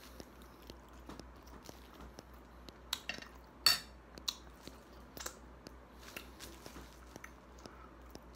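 A person chewing shrimp and rice, with a metal fork clinking on the plate. The loudest, sharpest clink comes a little over halfway through.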